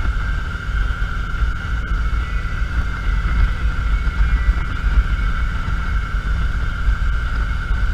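Motorcycle engine running steadily at cruising speed: a low, fluttering rumble with a steady high whine above it.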